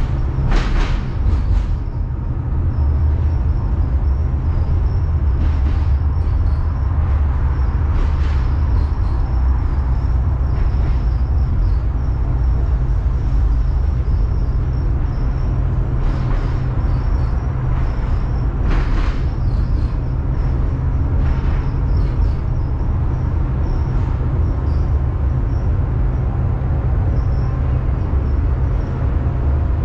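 Tram running along the track: a steady low rumble with several sharp clacks, a cluster about a second in and another strong one around nineteen seconds in.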